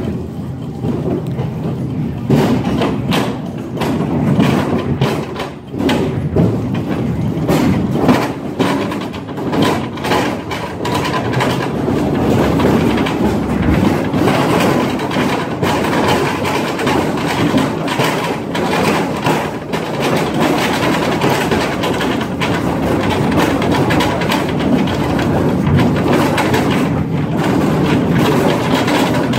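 Mine train cars rumbling and rattling over the rails in a tunnel, with a rapid run of clacks and knocks from the wheels and couplings on a bumpy track. The clacking is densest through the first part and settles into a steadier rumble later on.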